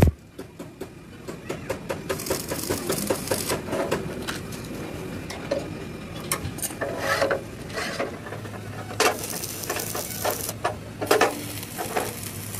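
Stick (arc) welding on a steel truck chassis: the arc crackles and hisses in rapid small pops, in two stretches of a second or so, with scattered clicks of metal being handled in between. A low steady hum comes in about eight seconds in.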